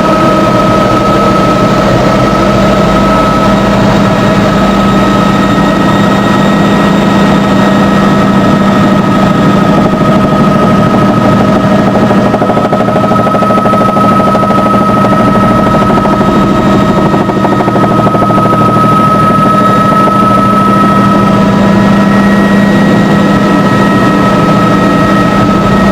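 Helicopter engine and rotors running steadily, heard from inside the cabin, with a constant whine over a low drone.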